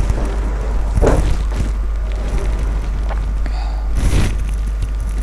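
Handling noise from objects being picked up and moved: two dull knocks, about a second in and about four seconds in, with faint rustles and ticks between, over a steady low hum.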